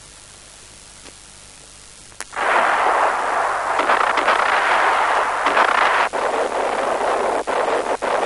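Artillery fire on an old war-film soundtrack: after a couple of seconds of faint hiss, it starts suddenly just after a click and runs on as a loud, continuous din, with a few brief dips near the end.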